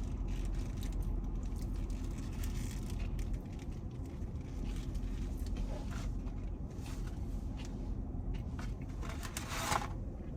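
Fast-food eating sounds, chewing with the rustle of a paper wrapper, in scattered short clicks that are strongest near the end. A steady low hum runs underneath.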